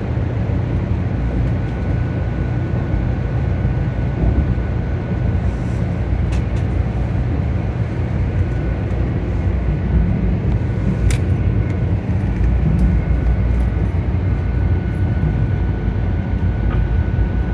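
Cabin noise inside a moving 500-series Shinkansen: a steady low rumble of the train running on the track, with a faint steady high tone over it.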